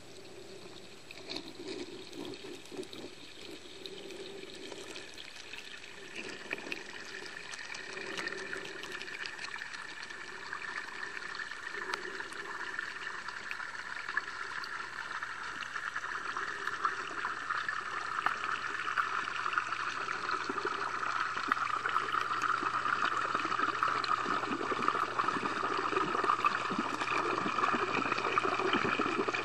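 Pond water heard underwater through a submerged camera: a steady rushing, trickling sound with scattered faint clicks, growing gradually louder.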